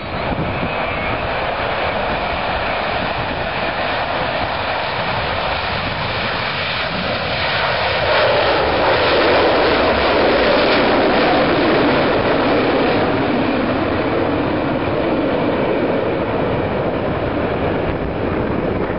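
Jet engine noise from a formation of Blue Angels F/A-18 Hornets making a low pass. A steady rushing sound swells about eight seconds in and stays loud for several seconds as the jets go by, its pitch shifting lower as they pass.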